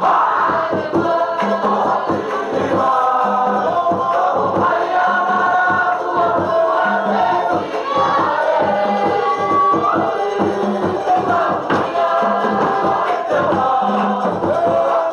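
A choir singing a Cook Islands song over a fast, steady drum beat.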